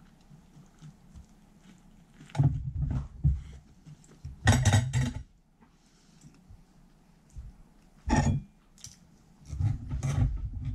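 Cutlery clinking and scraping on plates during a meal, in several short bursts with near-quiet gaps between them.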